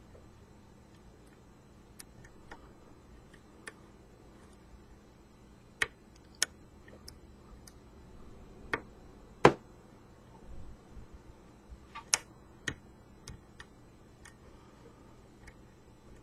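Scattered small metallic clicks and ticks of a hook pick working the pin stacks of a pin-tumbler challenge lock under tension, at irregular intervals, with one sharper click about nine and a half seconds in.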